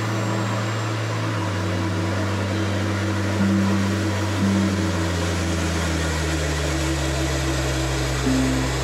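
Background music of held electronic synthesizer notes over a bass line that steps down twice, with a steady rushing hiss beneath.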